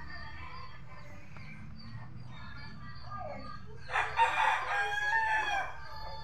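A rooster crows once, starting about four seconds in and lasting under two seconds, with faint bird calls before it.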